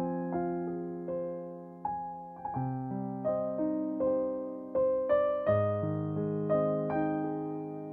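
Background music: a slow, gentle piano piece, single notes struck about once or twice a second and fading over held low notes.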